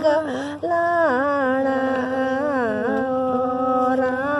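An elderly woman singing a Kangri folk song unaccompanied. She draws out long, wavering notes that slide up and down, with a short breath about half a second in.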